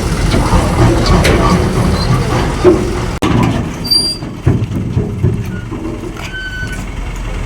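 Heavy vehicle engine running, with knocks and metallic clanks; the sound drops and changes abruptly about three seconds in.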